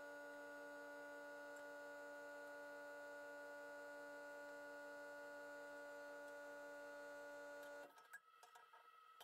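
Near silence: a faint, steady hum that cuts off about eight seconds in.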